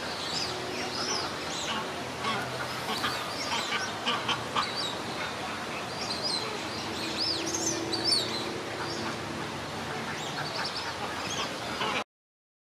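Magpie goose bathing, splashing water with its wings and body, with many short bird calls throughout. The sound cuts off abruptly near the end.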